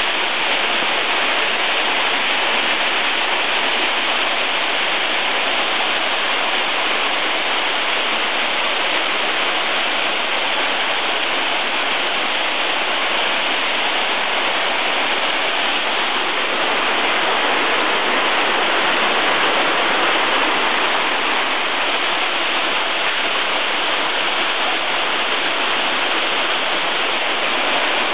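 Waterfall pouring steadily: a dense, even rush of falling water that does not change.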